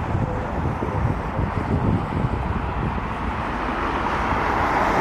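Airbus A320neo jet airliner's engines, a faint whine over a heavy rumble, growing louder toward the end, with wind buffeting the microphone.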